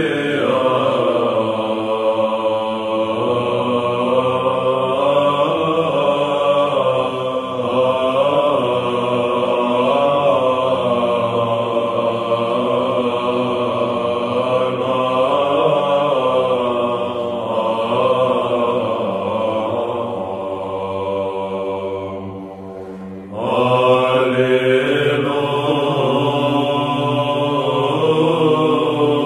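Byzantine chant sung by a choir: a slow, drawn-out melody over a steady held low drone note. The singing fades away about 22 seconds in, and a new phrase starts about a second later.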